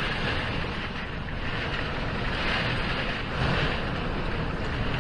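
Category 1 hurricane wind blowing outside a window, a steady rushing that swells in gusts a few times.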